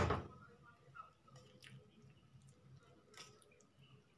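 Spoon stirring a thick flour-and-egg batter in a bowl, with a few faint scrapes and taps against the bowl. A louder sound dies away right at the start.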